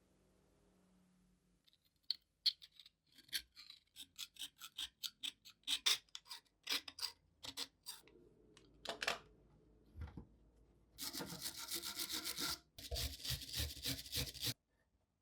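Hand scraping on rusty metal: a run of short, quick strokes, then two longer continuous rasping passes near the end.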